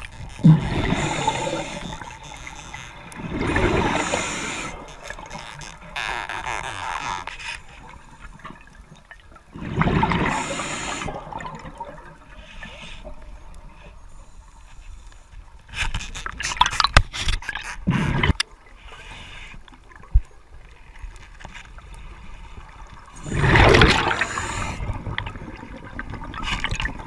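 Underwater breathing through a diver's regulator: bursts of exhaled bubbles gurgling every several seconds, with a few sharp clicks and scrapes between them.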